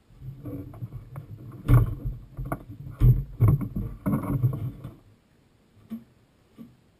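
Hollow knocks, thumps and scraping as a plastic fuel tank is worked and levered out of a jetski's fibreglass engine bay, the loudest knocks about two and three seconds in. It stops after about five seconds, leaving a couple of light clicks.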